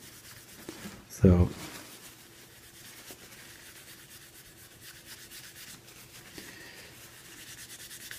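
Paper napkin rubbing back and forth over a black plastic computer case, a faint scratchy wiping, as toothpaste is wiped off the plastic.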